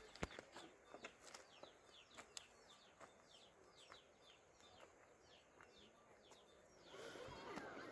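A small bird calling faintly: a steady series of short, falling chirps, about three a second, that stops about seven seconds in, with a few faint clicks.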